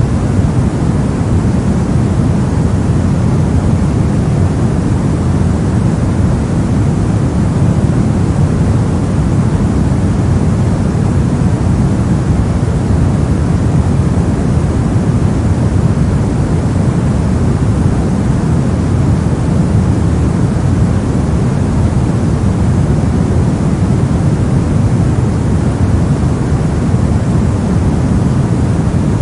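Steady 'soft noise' sleep track: an even, unbroken hiss weighted toward the low end, deep and rumbling rather than bright, with no changes or events.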